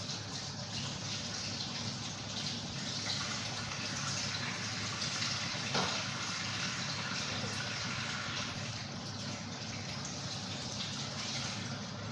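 Large covered aluminium pot of soup boiling on the stove: a steady, even rushing noise, with one brief click about six seconds in.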